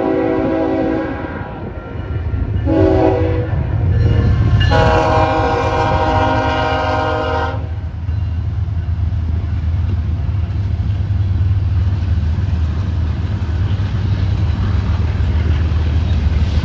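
A GE ES44C4 diesel locomotive, BNSF 6818, sounds its Nathan K5HL five-chime air horn for a grade crossing: a blast that ends about a second in, a short blast, then a long blast lasting about three seconds. Under and after the horn, the three-locomotive consist passes with a heavy, steady low diesel rumble, followed by rolling grain hopper cars.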